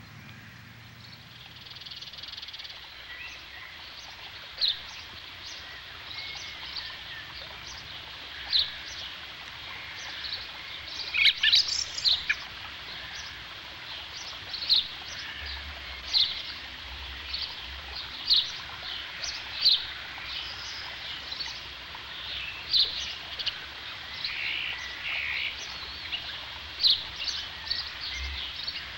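Outdoor wildlife ambience: short, high chirping calls repeat every second or two over a steady hiss. A louder cluster of calls, rising in pitch, comes about eleven seconds in.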